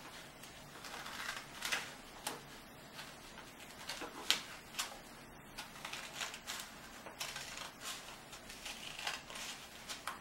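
Scissors cutting through folded construction paper: a run of irregular snips and crunches, with paper rustling between them.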